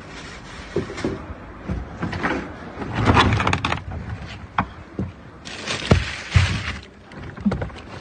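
Rummaging by hand in a dumpster: bagged bread loaves and plastic sacks rustling and being shifted, with irregular knocks and thuds against the bin. The rustling is loudest about three seconds in and again near six seconds in.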